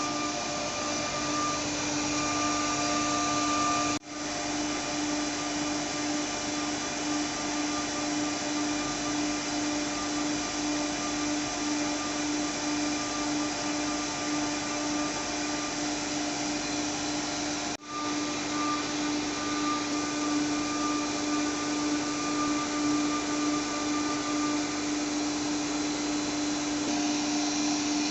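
CNC router spindle running steadily, carving a wood workpiece, with a constant whine. The sound cuts out sharply for a moment twice.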